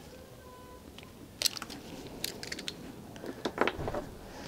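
Scattered metallic clicks and knocks of a hex-bit driver turning the clamp bolt on a Formula RX hydraulic brake master cylinder as it is snugged up by feel. A quick cluster of knocks comes a little over three seconds in, as the tool comes off the clamp.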